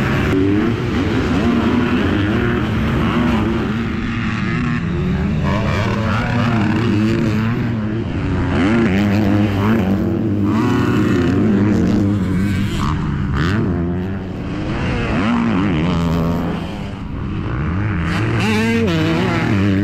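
Several motocross bike engines revving together, their pitch climbing and dropping over and over as they overlap. The sound dips briefly a couple of times in the second half.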